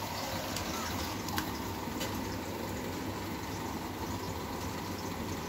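Steady low hum and hiss of background noise, with a couple of faint clicks in the first second and a half.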